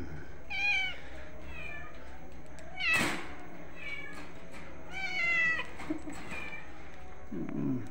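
Cat meowing: about five short, high-pitched mews spaced a second or two apart, the longest one about five seconds in.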